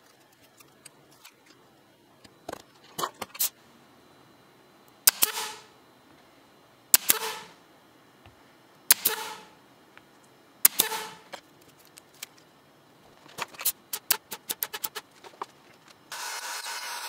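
Pneumatic brad nailer firing four times about two seconds apart, each shot a sharp crack followed by a short hiss of exhaust air, driving very tiny brad nails through 1/4-inch walnut into the CNC spoilboard. Lighter clicks come before and after the shots, and near the end a motor starts and runs steadily.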